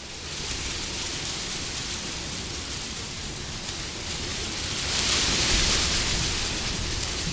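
Wind blowing: a steady rushing hiss that swells into a stronger gust about five seconds in, then eases a little.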